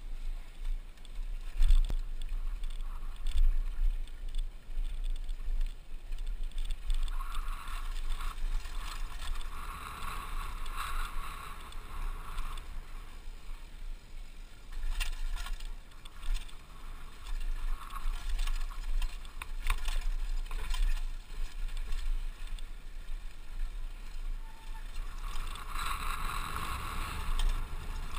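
Mountain bike ridden down a rough dirt trail, recorded from a helmet-mounted camera: wind rumbling on the microphone, with rattles and knocks from the bike and tyres over the bumps.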